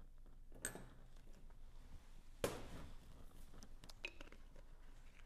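A few faint clicks and taps as a metal measuring spoon and a small vanilla bottle are handled over a glass bowl; the clearest tap comes about two and a half seconds in.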